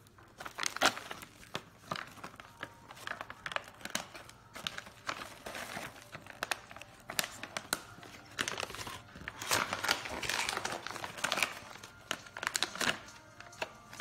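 Stiff plastic snack pouch of crackers crinkling in irregular crackles as it is handled and pulled open.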